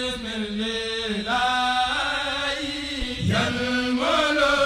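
A voice chanting in long held notes that change pitch every second or so, played as the channel's opening music.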